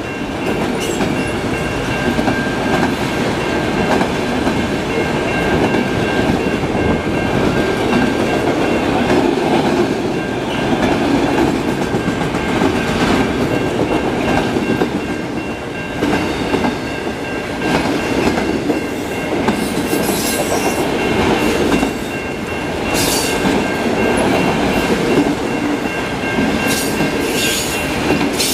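Autorack freight cars rolling past: a steady rumble and clickety-clack of steel wheels over the rail joints. Short, high-pitched metallic screeches come a few times in the last third.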